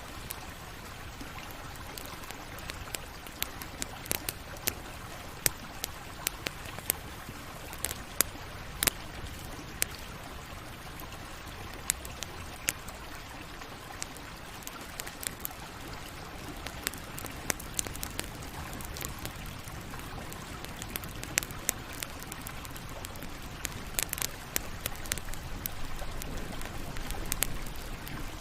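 Campfire burning: irregular sharp crackles and pops of burning wood, a few at a time, over a steady low rushing noise.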